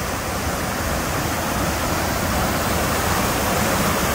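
Reservoir outflow water rushing through a concrete channel beneath a steel grate: a steady rush that grows slightly louder toward the end.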